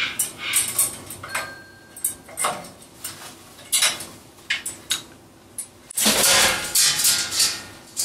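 Cockatoo playing on a hanging toy of wood, cardboard and plastic beads: scattered sharp clicks and clacks as it works the toy, then a louder noisy rustle about six seconds in.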